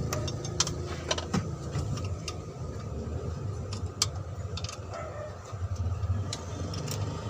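Scattered sharp metallic clicks and clinks of hand tools on engine parts, at irregular intervals, over a steady low engine-like hum.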